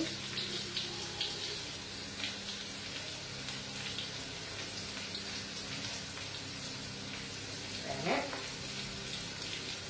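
Steady low appliance hum with a faint hiss, over faint taps and rustles of hands tying butcher's string around a rolled roast on a wooden board.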